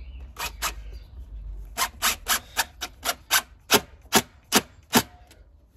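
Cordless DeWalt impact driver driving a screw through composite decking trim into the support bracket in short trigger bursts: two near the start, then about three a second, the last few loudest as the screw seats flush.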